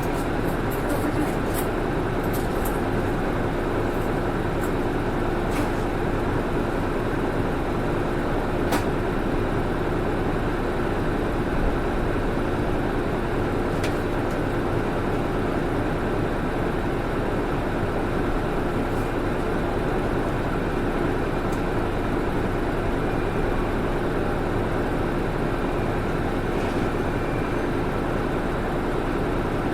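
Interior of a UD (Nissan Diesel) Space Runner RA city bus under way, with a steady engine and road drone and a constant hum. The bus is known for an abnormal noise. A few light clicks or rattles sound in the first few seconds.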